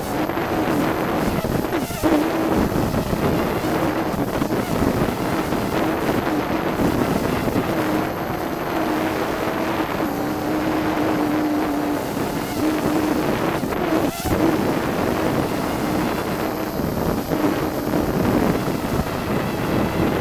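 Hubsan quadcopter's motors and propellers whining steadily, heard through the 808 keychain camera mounted on the drone, the pitch wavering a little as the throttle changes. Wind rushes over the microphone, with brief knocks about two seconds in and again near the middle.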